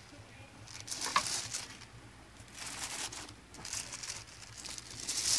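Rustling and crinkling right against the microphone in four bursts of about a second each, as the phone rubs against the cat's fur and the white cloth or plastic beside it.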